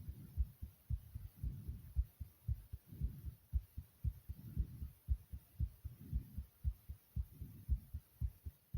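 A person's heartbeat: a steady run of low thumps, about two a second.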